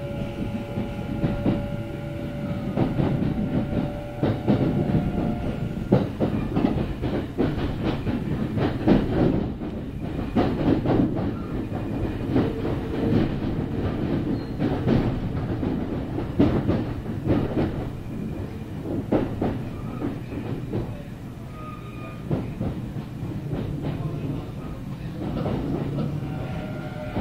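Kintetsu 9030-series electric train running, heard from inside the car: its wheels clack irregularly over rail joints and points over a steady rumble. A steady motor whine is heard near the start and again near the end.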